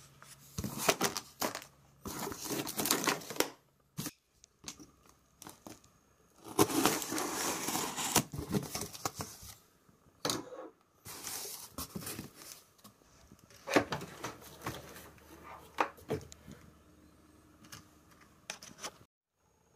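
Packing tape being ripped off a cardboard shipping box and the cardboard flaps pulled open, in irregular bursts of tearing and scraping; the longest rip, about two seconds, comes around a third of the way in. Later the plastic wrap around the unit crinkles and there are a few sharp knocks, and the sound stops abruptly just before the end.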